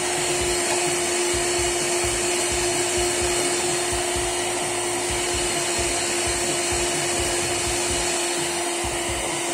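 Electric hand mixer running steadily at medium-high speed, its beaters whisking eggs and sugar in a glass bowl; a constant motor whine.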